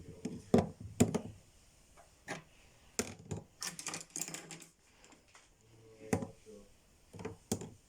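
Makeup brushes clicking and knocking against each other and the dishwasher basket as they are handled and put in, an uneven run of sharp clicks, two louder knocks about a second in.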